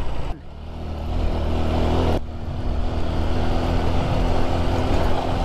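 Motorcycle engine running hard under load, pulling up a steep hill road. The sound breaks off abruptly twice, about a third of a second and two seconds in.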